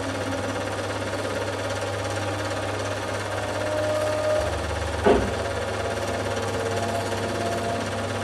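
Steady mechanical clatter and hum of a running film projector, with one sharp knock about five seconds in.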